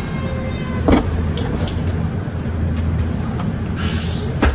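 Mercedes-Benz Citaro city bus running: a steady low engine drone with rattling, a faint whine that fades out in the first second, a sharp knock about a second in, and a short hiss followed by another knock at the end.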